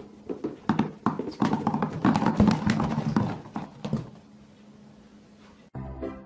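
A clatter of many small red apples dropping and bouncing on a hard surface: a rapid, uneven run of knocks and thuds over a low steady hum, dying away about four seconds in. Music starts just before the end.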